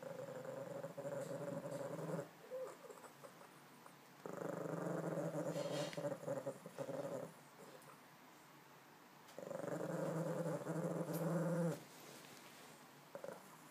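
Tibetan spaniel growling: three long, low growls of about two to three seconds each, with short pauses between.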